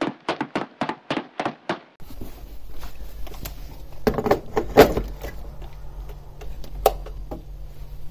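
Quick, even footsteps, about three or four a second, as someone walks a garden path carrying a filled electric kettle. About two seconds in the sound switches to a steady low hum with a few knocks and clunks, the loudest as the kettle is handled and set down on a bench.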